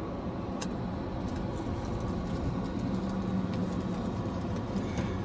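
Car engine running and tyre noise heard from inside the cabin as the car drives slowly, a steady low hum whose tone strengthens a little partway through, with a faint click or two.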